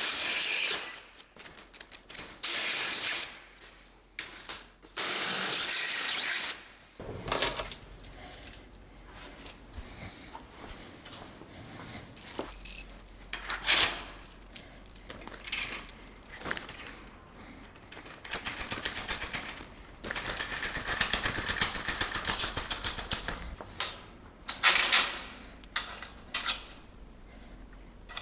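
A power drill runs in three short steady bursts in the first seven seconds, then clicks, knocks and rattles of tools and metal hardware follow, with a dense run of rapid clicking later on and a sharp loud burst near the end.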